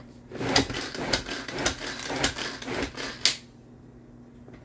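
A hand-powered Tupperware chopper is worked in about six quick strokes, its blades whirring and rattling through onions and tomatoes. The strokes stop a little past three seconds in.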